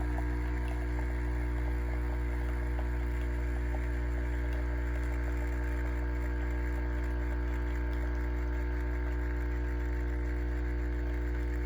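Capsule coffee machine's pump humming steadily while it runs, a constant low electrical hum with no change in pitch or level.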